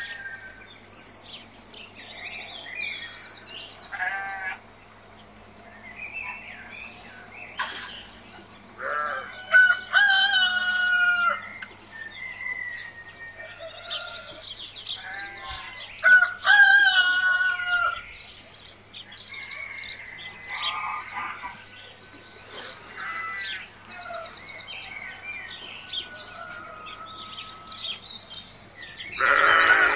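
Chickens clucking and a rooster crowing, mixed with quick high chirps of small birds, call after call with short gaps. A steady low hum runs underneath.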